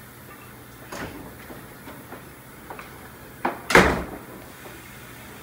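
Kitchen handling noises: a few light knocks and clicks, then one louder bang with a short ring a little under four seconds in.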